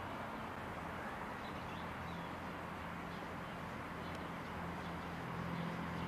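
Outdoor ambience: a steady low mechanical hum under an even hiss, with a few faint bird chirps.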